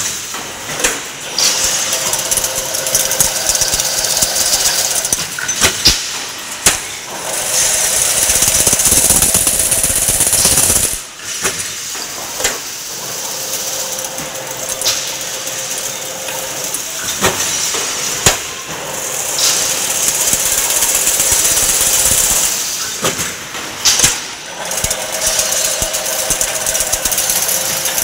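Automatic chain-link fence weaving machine running: a steady hiss of wire being formed into a spiral, with sharp knocks every one to two seconds as the machine cycles.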